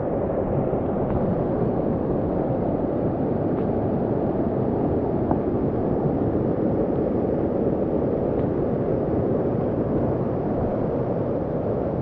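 Fast mountain stream rushing in white rapids over rocks: a steady, even rush of water.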